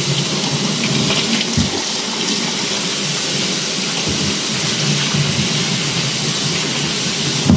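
Tap water running steadily from a faucet and splashing onto a woven bamboo bilao tray as a hand scrubs it over a sink. A light knock sounds about one and a half seconds in.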